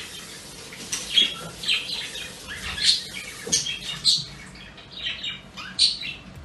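Birds chirping and calling, a string of short, sharp high calls every second or so.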